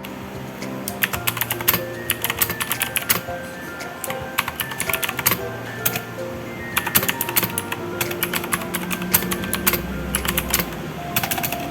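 Typing on a mechanical keyboard fitted with ABS OEM-profile keycaps: quick runs of keystroke clicks with short pauses between them, over background music.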